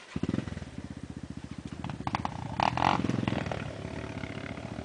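Off-road motorcycle engine running with a fast, even firing beat. It comes in abruptly just after the start, and there is a brief louder burst of revving about two and a half seconds in.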